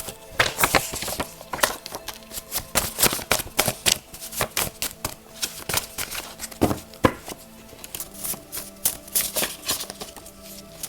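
A deck of oracle cards being shuffled by hand, with irregular quick flicks and taps of the cards, over soft steady background music.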